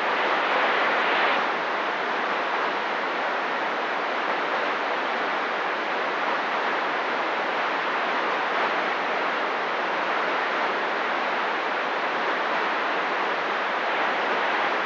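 CB radio receiver hiss: steady static on an open channel with no one transmitting.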